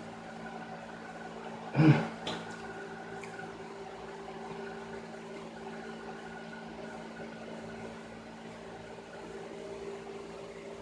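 A steady, even machine hum, with one short louder sound about two seconds in.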